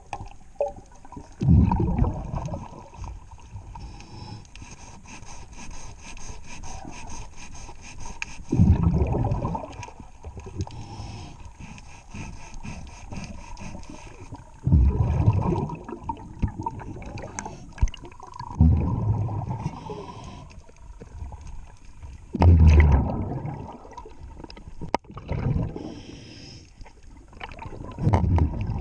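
Scuba diver's exhaled bubbles rumbling out of the regulator underwater, in six bursts of a second or so, one every few seconds. Between the breaths there is faint rapid ticking and scraping.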